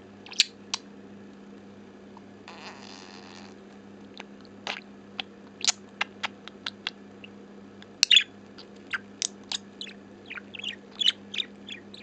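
A yellow budgerigar right at the microphone making a string of short sharp clicks and chirps, scattered and quickening through the second half, with a brief soft hiss about three seconds in. A steady low electrical hum runs underneath.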